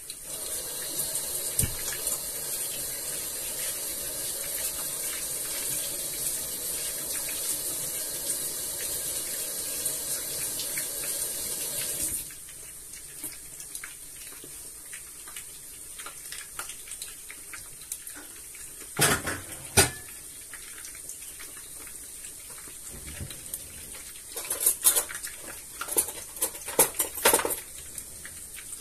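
A steady hiss that cuts off suddenly about twelve seconds in, followed by a few sharp clatters of kitchenware.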